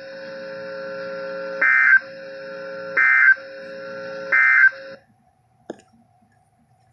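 Emergency Alert System SAME end-of-message data bursts on NOAA Weather Radio: three short, high, warbling digital squawks about 1.3 seconds apart, over a steady low hum. This signals the end of the tornado warning broadcast. The signal cuts off about five seconds in, and a faint click follows.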